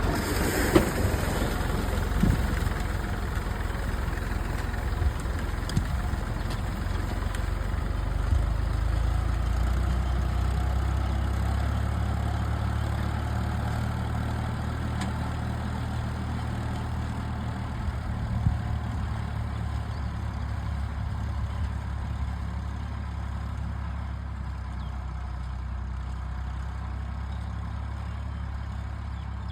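Tractor engine running steadily while pulling a plough, a low drone with a few sharp knocks and clanks in the first seconds.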